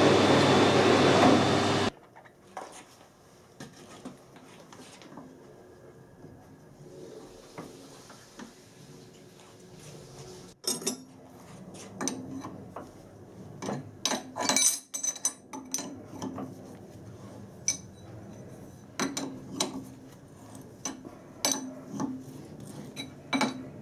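A metal lathe runs for about two seconds, then stops. From about halfway on come irregular metallic clicks and clinks as a spanner turns a tailstock die holder by hand, a new die cutting a thread on a stainless steel stud.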